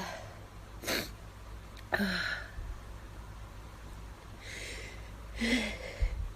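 Sneezes: three short, sudden sneezes, about a second in, about two seconds in and near the end. The last comes after an audible sharp intake of breath.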